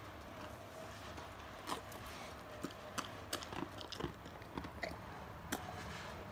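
A Great Pyrenees dog chewing at a snack with its mouth open and drooling, making irregular crunches and mouth clicks.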